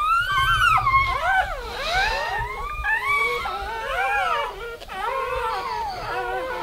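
Newborn Weimaraner puppies crying: a continuous run of high-pitched squealing whimpers, each rising and falling, often overlapping one another.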